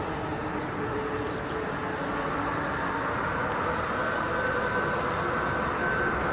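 Airbus A350-900's Rolls-Royce Trent XWB turbofan engines running at low power while the airliner taxis and turns on the runway: a steady jet whine with a few held tones, growing slightly louder over the seconds.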